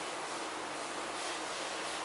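Steady hiss of background noise, even and unchanging, with no distinct event.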